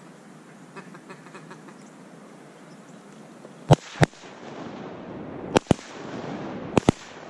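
Shotgun shots from duck hunters firing at incoming ducks: six sharp, loud blasts in three quick pairs, starting about halfway through.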